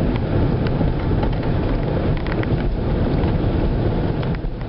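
Steady road and wind noise of a car driving on a wet highway, heard from inside the car, with a low rumble and scattered light ticks.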